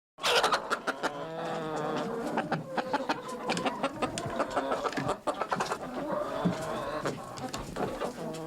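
Chickens clucking: many short, sharp clucks overlapping with longer drawn-out calls at several pitches.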